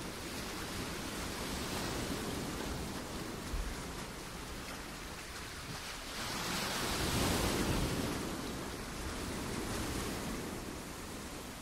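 Rushing wind noise on the microphone, with no distinct events. It swells and eases, loudest about seven seconds in.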